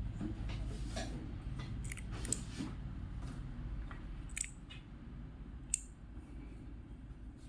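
Mechanical key switches on a mini four-key keyboard keychain clicking as keys are pressed: several sharp clicks at irregular intervals over a low steady hum.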